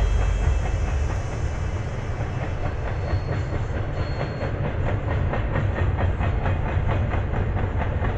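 Double-stack intermodal freight train rolling past: a steady rolling noise of steel wheels on rail, with a regular clickety-clack of about four clicks a second that becomes plain from about three seconds in.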